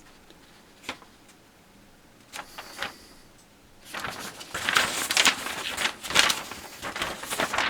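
Paper instruction sheets being handled and turned over: a few light taps and knocks at first, then rustling and crinkling for the last few seconds.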